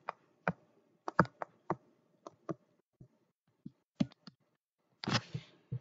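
Irregular light clicks and taps of pen strokes being entered on a digital whiteboard, about fifteen in all, unevenly spaced. A short hiss near the end.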